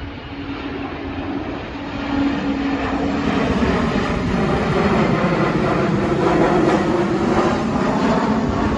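Twin-engine jet airliner flying low overhead on approach. Its engine rush swells over the first few seconds and then holds loud, with a steady low drone inside it. Wind rumbles on the microphone underneath.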